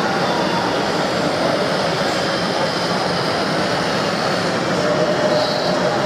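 Steady whine and hum of a radio-controlled Liebherr 944 model excavator's hydraulic pump as it raises a loaded bucket, the tone firming up and rising slightly about five seconds in. It sits over a constant wash of hall noise.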